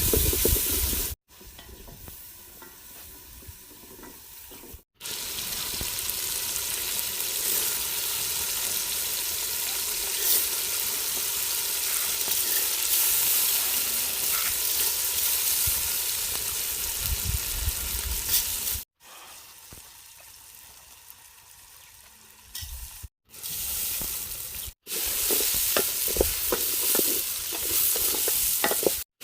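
Food sizzling and frying in a cooking pot with stirring, heard as a steady hiss in several short stretches joined by abrupt cuts; two of the stretches are much quieter.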